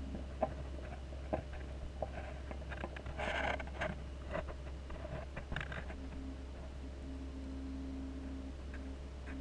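A steady low hum with scattered light clicks and a brief rustle about three seconds in.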